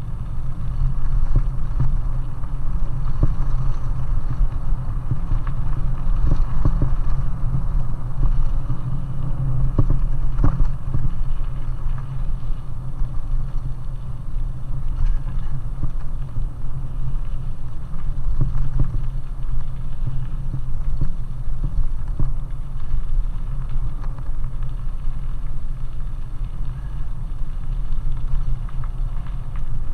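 Steady low rumble of wind on a helmet camera's microphone and bicycle tyres rolling on a gravel track. Scattered small knocks and rattles come from bumps in the surface.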